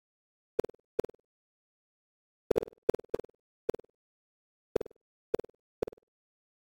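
Computer-generated bounce sounds of virtual boxes in a surround sound test: nine short, sharp synthetic knocks at uneven intervals, each trailing off in two or three quick, fainter repeats, with dead silence in between. Several come close together about two and a half to four seconds in.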